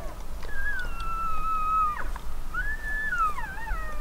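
Elk calling: two long, high whistled calls. The first is held nearly level for about a second and a half. The second rises, then wavers and falls in steps toward the end.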